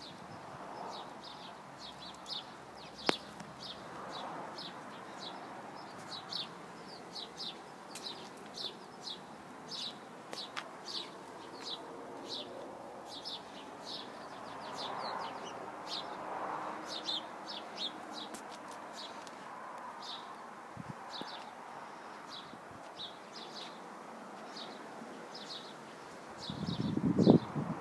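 A small bird chirping over and over, short high chirps about twice a second, over faint outdoor background noise. A brief louder low noise comes near the end.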